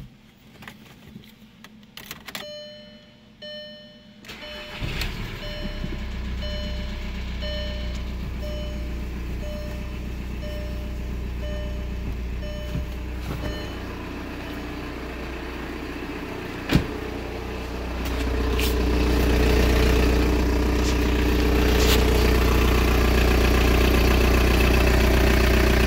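A Volkswagen ALH 1.9 TDI diesel engine starts about five seconds in and then idles steadily, while a dashboard warning chime beeps over and over for the first several seconds. The idle gets louder about two-thirds of the way through, and there is a single sharp click shortly before that.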